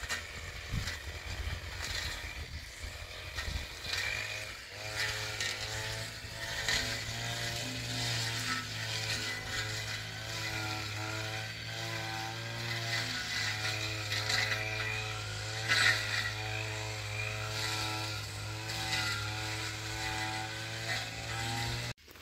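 A small engine running, its pitch shifting up and down, with a steady low hum underneath; it cuts off abruptly near the end.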